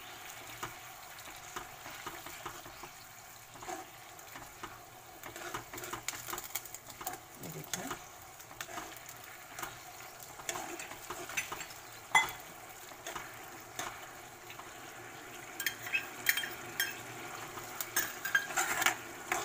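A metal spoon stirring thick, cornflour-thickened vegetable sauce in a wok, with irregular scrapes and clinks against the pan over a light sizzle. There is one sharper knock about twelve seconds in, and the clatter gets busier near the end.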